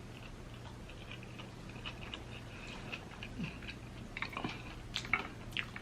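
A person chewing food close to the microphone: soft scattered mouth clicks and smacks, a few louder ones in the second half, over a faint steady low hum.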